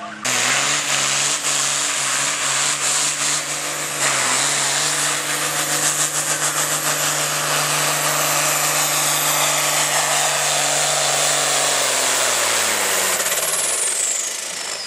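Turbocharged diesel engine of an International Harvester farm tractor at full throttle pulling a weight-transfer sled, running hard and steady with a high whistle over it. Near the end the engine lets off and its pitch and the whistle drop away.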